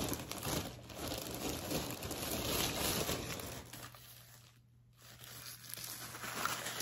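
Packaging crinkling and rustling as purchased items are unwrapped and handled, for about four seconds, then briefly pausing before it starts again near the end.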